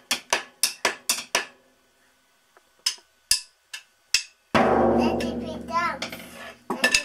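Wooden drumsticks clicked together in quick succession, then a few slower clicks; about four and a half seconds in, a drum and cymbal on a small drum kit are struck and ring out for about two seconds. A child's voice is heard briefly during the ringing.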